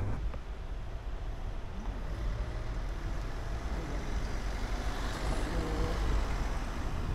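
Road traffic: a car driving by, a steady low rumble of engine and tyres.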